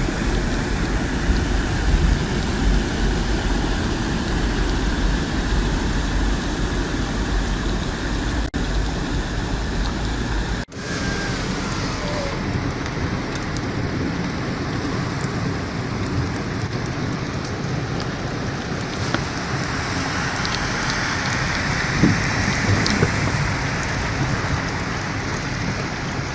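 Heavy rain pouring down in a steady rushing hiss. It breaks off abruptly twice, about 9 and 11 seconds in, and sounds duller afterwards.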